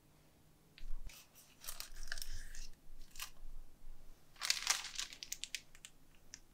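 Kitchen handling noises of food preparation: crackly, crunchy rustling and sharp little clicks in two clusters, one about a second in and one around four and a half seconds in.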